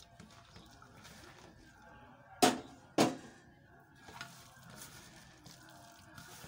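Water poured from a plastic mug into a steel bowl of shredded cabbage and cornflour, followed by soft squelching as the batter is mixed by hand. Two sharp knocks about two and a half and three seconds in are the loudest sounds.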